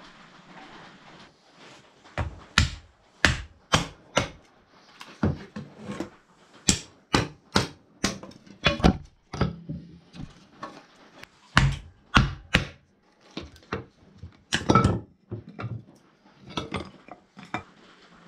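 Pine kindling being split and chopped with a knife: a fast, irregular series of sharp wooden knocks and cracks, some in quick pairs, starting about two seconds in.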